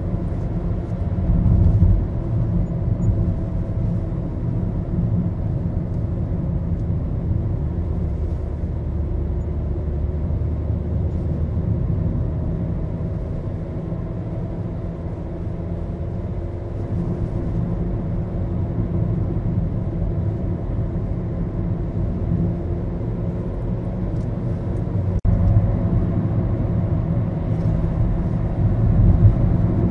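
Driving noise inside a Maruti Suzuki Baleno's cabin: a steady low road-and-engine rumble with a faint engine hum that slowly drifts in pitch, growing a little louder near the end.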